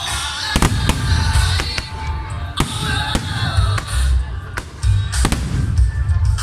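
Fireworks going off in several sharp bangs a second or two apart, over loud music with a heavy bass.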